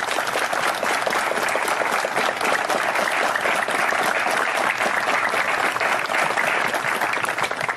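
A crowd of guests applauding: steady, dense clapping that thins out near the end.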